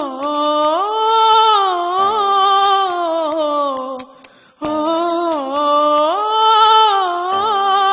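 A solo voice singing a wordless melody, hummed or sung on a vowel, in two long gliding phrases with a short break about four seconds in.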